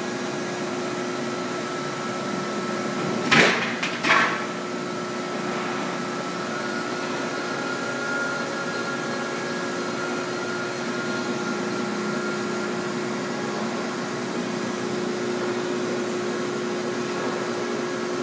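Hydraulic press brake running with a steady hum while sheet metal is bent in it. About three seconds in there are two sharp bangs, less than a second apart.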